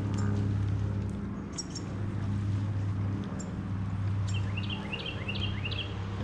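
A motor hums steadily and low, with a few short high chirps and clicks, most of them in a quick run about four to five and a half seconds in.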